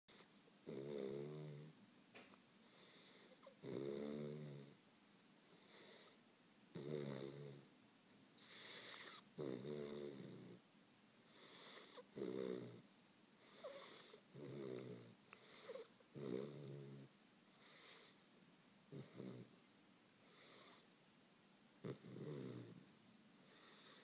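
Weimaraner puppy snoring in its sleep, with a pitched snore about every two and a half seconds and quieter breathing between.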